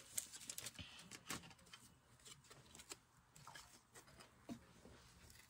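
Near silence, with a few faint clicks and taps from trading cards and packs being handled on the table.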